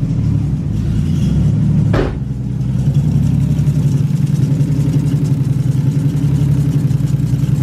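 Nissan Skyline R32's turbocharged straight-six idling steadily with a loud, rapid low pulsing, freshly started after an oil change. A brief knock about two seconds in.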